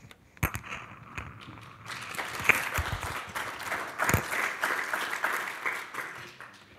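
Audience applauding, swelling about two seconds in and dying away near the end, with a couple of low thumps in the middle.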